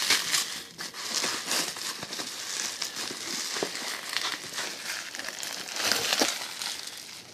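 Cardboard box being handled and opened, with irregular rustling and crinkling and small clicks of cardboard and packing.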